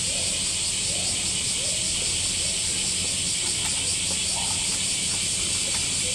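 Chorus of summer cicadas: a steady, high-pitched shrill drone that does not let up, over a low steady hum.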